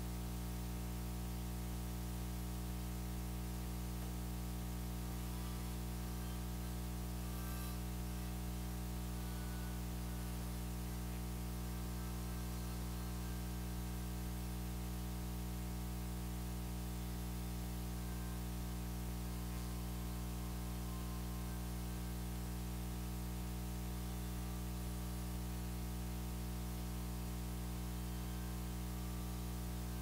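Steady electrical hum with a stack of buzzing overtones and background hiss, unchanging in pitch and level throughout.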